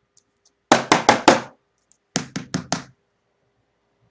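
Knocking: two quick runs of four sharp knocks, the second coming about a second after the first.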